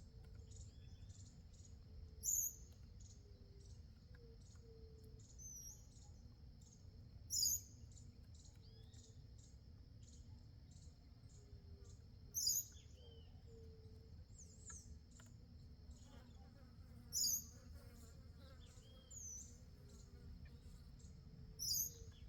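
Songbirds calling around a feeder: a loud, short, high call repeats about every five seconds, with softer quick chirps in between. Beneath them runs a steady high-pitched insect drone.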